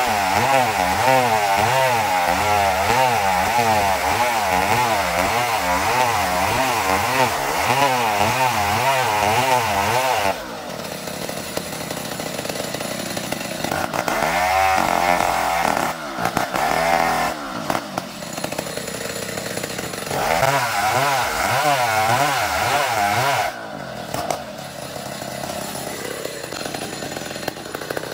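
Two-stroke chainsaw ripping lengthwise through an ulin (Borneo ironwood) log, the engine labouring under load with its pitch wavering. About ten seconds in it drops to a lighter, steadier whine, then bites back into the cut in a few shorter spells before easing off near the end.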